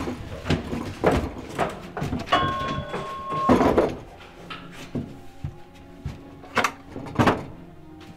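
Children climbing into a wooden cabinet and it being shut: a run of knocks and bumps on wood, with a steady squeak lasting about a second, two and a half seconds in. Two louder knocks come near the end.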